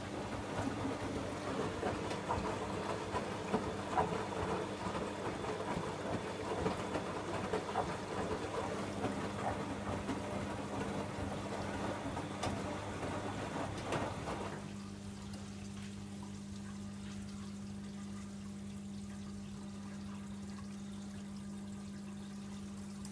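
Bosch Logixx 8 washing machine with water splashing and sloshing inside its drum, over a steady low hum from the machine. The splashing stops about fourteen seconds in, and only the steady hum carries on.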